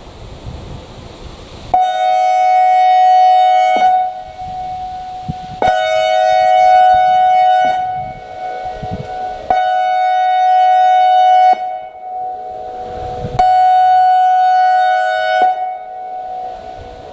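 ACA Alertronic AR-1600 electronic outdoor warning siren sounding a steady-pitched tone in on-off blasts: four blasts of about two seconds each, with gaps of about two seconds between them.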